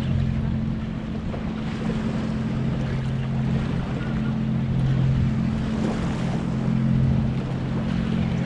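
A boat motor running at a steady idle, a low constant hum, with wind buffeting the microphone and water lapping.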